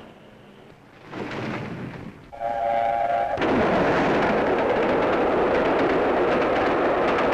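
A steam locomotive approaching and gives one short whistle blast about two and a half seconds in. Then the loud, steady rush of the steam-hauled passenger train passing close by.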